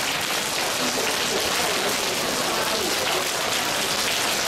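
A hall full of people steadily slapping their hands and bodies together in group paida practice, a dense, even patter with no breaks.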